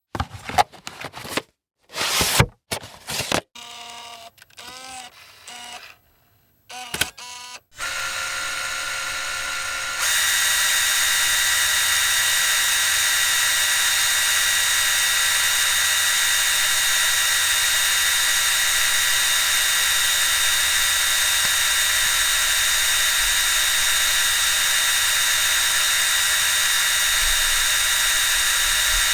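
A quick series of mechanical clicks, clunks and short whirs, then a small machine running with a steady whine made of several held tones, which steps up louder about ten seconds in.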